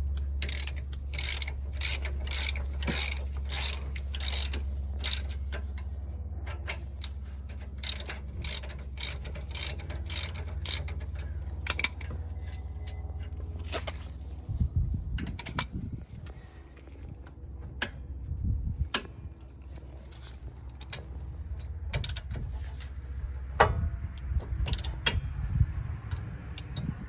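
Hand ratchet wrench clicking in quick, evenly spaced runs as rear brake caliper bolts are turned, over a steady low hum that stops about halfway through. Irregular knocks of tools and parts follow.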